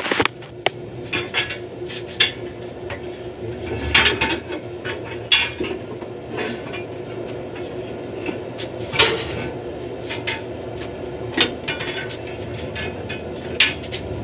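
Irregular metal clanks and knocks from work in a blacksmith's shop, some ringing briefly, over a steady low hum.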